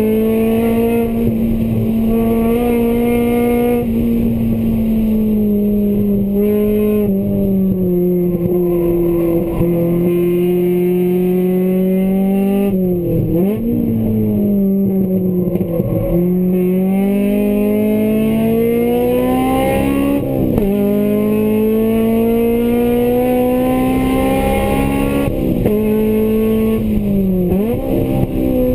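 Acura Integra four-cylinder engine heard from inside the cabin under track driving, its note drifting slowly up and down with engine speed. Four times the pitch dips sharply and climbs straight back.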